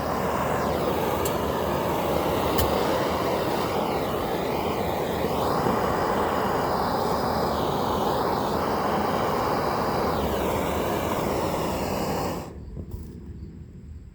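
Steady rushing noise of a burner heating the steel shovel blade back up after it cooled too far to forge; it cuts off suddenly about twelve seconds in.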